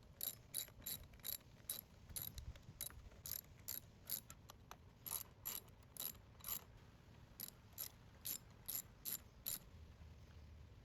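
Socket ratchet clicking in runs of quick strokes, with short pauses between, as the air filter holder is screwed back onto the Briggs and Stratton engine.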